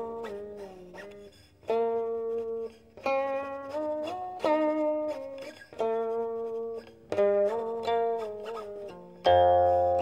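Guqin (seven-string Chinese zither) playing solo: single plucked notes that ring and fade, several sliding in pitch after the pluck. Near the end comes a louder, deeper note.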